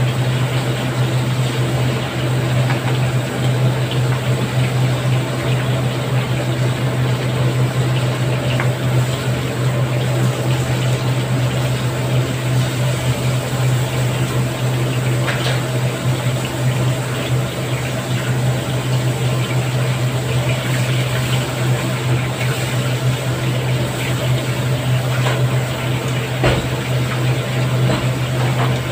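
Chicken pieces deep-frying in a wok of hot oil: a steady, loud sizzle and bubbling, over a constant low hum, with a few faint clicks.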